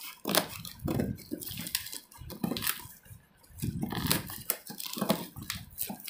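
Kitchen knife cutting through a corrugated cardboard parcel box and its tape: irregular scraping, crackling and ripping, with a short pause about halfway through.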